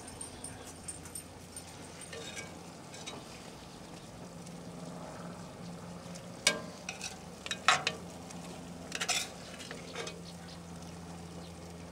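A metal serving spoon scraping and stirring in a cast iron Dutch oven as curry is scooped out, with a few sharp clinks of metal on the iron pot in the second half, over a steady low hum.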